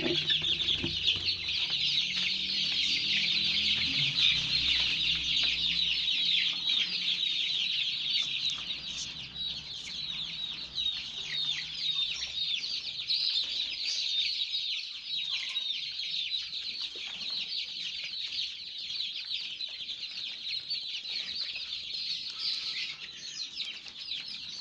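A pen full of 19-day-old Joper (Indonesian native crossbreed) chicks peeping nonstop, many short, high, falling peeps overlapping into a continuous chorus. A low rumble sits under the first few seconds.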